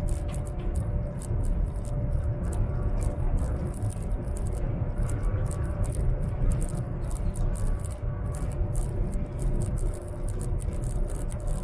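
Cabin noise of a high-speed train running at speed: a steady low rumble with a dense, irregular ticking rattle over it.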